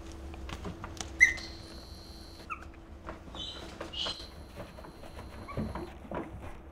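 Young Chinese Crested puppies giving short, high-pitched squeaks a few times, the loudest about a second in. Under the squeaks is light scratchy rustling and pattering as they crawl over paper puppy pads.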